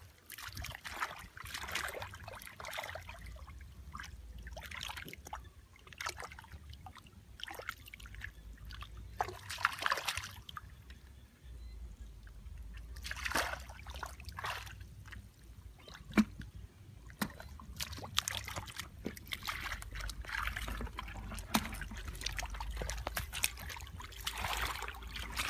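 Hands and feet sloshing and splashing in shallow muddy water, with trickling and irregular small splashes as the mud is groped through by hand for fish.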